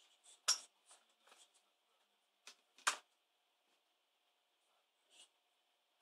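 Light plastic clicks and taps as the bottom access panel of an ASUS K55VJ laptop is unclipped and lifted off, with two sharper clicks, about half a second in and just before the three-second mark.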